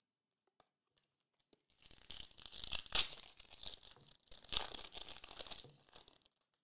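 Foil trading-card pack wrapper being crinkled and torn open by hand, in two stretches of crackling, the first starting about two seconds in and the second just after the middle.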